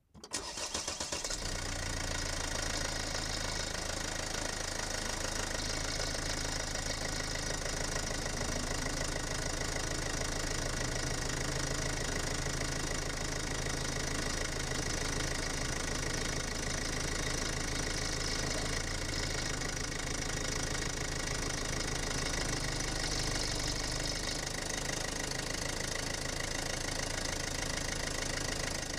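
Mercedes-Benz OM651 2.1-litre four-cylinder twin-turbo diesel engine starting at once on a cold start, then running steadily with diesel knock, heard close up from inside the engine bay.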